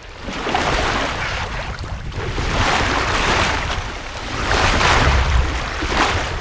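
Water rushing and splashing along a sailing yacht's hull as it moves through the sea, surging and easing every second or two. Wind buffets the microphone with a low rumble underneath.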